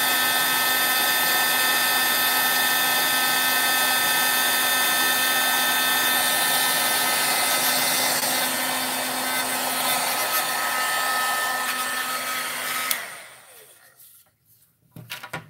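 Craft heat gun running, a steady rush of air with the whine of its fan motor, switched off near the end and dying away over about a second. Its owner says this brand-new gun rattles inside and worries that it is a bad sign.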